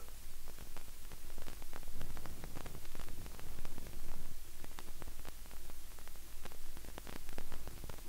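Vinyl surface noise from a stylus tracking the silent groove between tracks of a 12-inch record: a soft hiss with scattered crackles and pops, and a low steady hum underneath.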